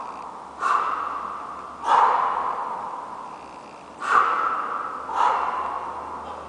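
A man breathing hard with each kettlebell jerk rep: four sharp, noisy exhalations, one every one to two seconds, each tailing off before the next.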